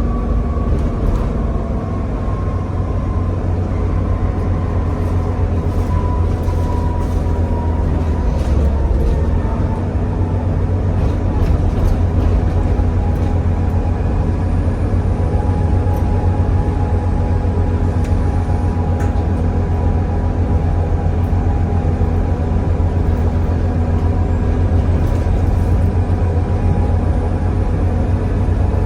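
Volvo B7TL double-decker bus under way, its six-cylinder diesel and ZF automatic gearbox running with a steady low drone. A whine falls slowly over the first eight seconds, and the drone shifts about nine seconds in.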